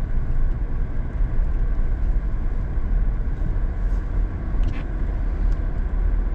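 Truck driving slowly on a snow-covered road, heard from inside the cab: a steady low rumble of engine and tyres.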